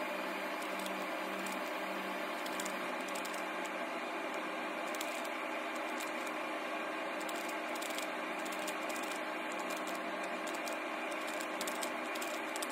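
A 3x3 Rubik's cube being turned quickly, its plastic layers giving scattered light clicks over a steady hum with several fixed tones.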